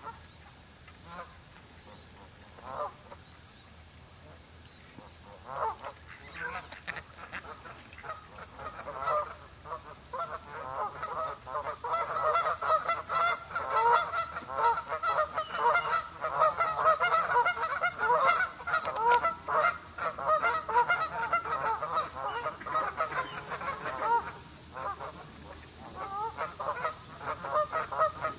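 A flock of waterfowl calling: scattered single calls at first, then from about ten seconds in a dense, unbroken chorus of many birds that eases briefly near the end and picks up again.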